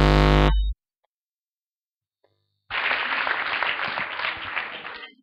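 A steady low droning tone cuts off abruptly under a second in. After about two seconds of silence comes roughly two seconds of applause, which fades out.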